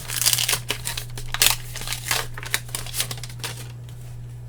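Foil wrapper of a 1991 Upper Deck baseball card pack crinkling and crackling as it is handled and torn open, in a rapid irregular series that dies down near the end.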